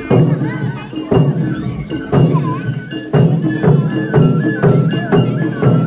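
Japanese festival ohayashi music: drum strikes about once a second, with metal percussion. About three seconds in, a bamboo flute joins with a melody of held high notes that step up and down.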